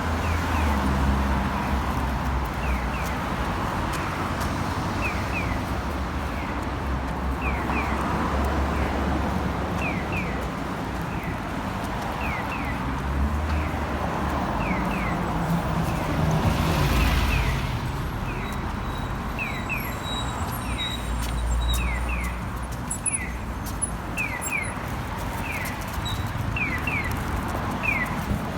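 Traffic rumble, with one car passing a little past the middle, and a bird calling repeatedly in short pairs of falling chirps.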